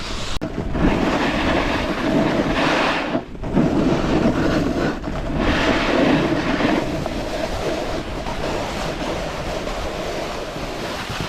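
Snowboard sliding and scraping over soft, bumpy snow, a rough hiss that swells and eases several times as the board turns.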